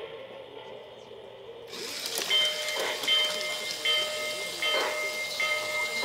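Sound effects from the onboard speaker of a Lionel Walt Disney World 50th anniversary O-gauge steam locomotive: about two seconds in, a steady hissing steam chuff starts, pulsing roughly once a second, over a high ringing tone that repeats.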